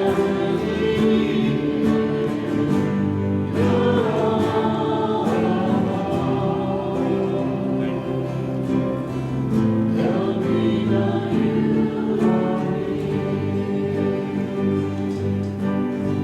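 Church worship band playing a song, with voices singing over sustained chords and a light strummed rhythm.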